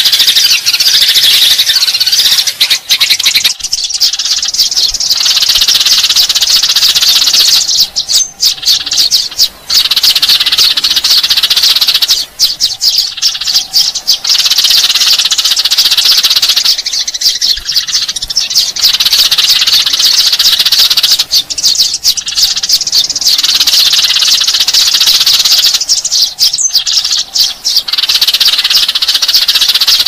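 A flock of Eurasian tree sparrows chirping and chattering densely: a sparrow lure-call recording. The chatter dips briefly about every four and a half seconds as the pattern repeats.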